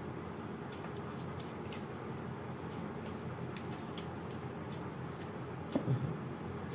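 Faint scattered clicks and scrapes of a kitchen knife paring raw jackfruit seeds and flesh against a cutting board, with a brief, slightly louder soft sound near the end.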